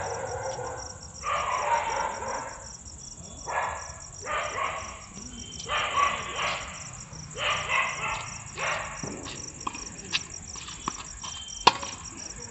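Repeated distant calls, each up to about a second long, over a steady high chirring of night insects. Near the end come a few sharp knocks of a tennis rally, racket strings on ball and ball bouncing on the court, the loudest about three quarters of the way through.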